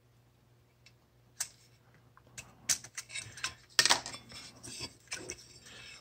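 Irregular plastic clicks and small knocks as a circuit board is unclipped from its plastic hold-down posts and lifted off a sheet-metal bracket. They start about a second and a half in and are thickest in the middle.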